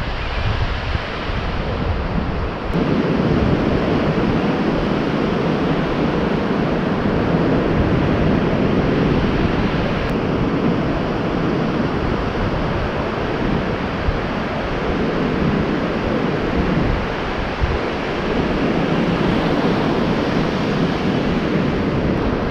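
Ocean surf breaking and washing up the beach, a steady rushing wash that grows louder about three seconds in, with wind blowing across the microphone.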